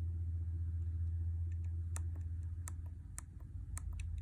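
Small push-buttons on a lab circuit board clicking as they are pressed, six or so sharp clicks about every half second from midway on, over a steady low electrical hum.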